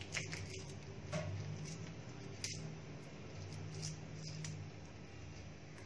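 Faint scattered crackles and soft squishes of charred skin being peeled by hand off a fire-roasted eggplant.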